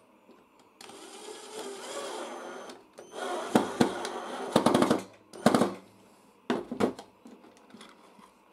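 Cordless drill-driver running in two bursts, driving a screw with a washer into the wooden board of a homemade contact breaker; the second burst ends in a quick run of sharp clicks. A few sharp knocks follow.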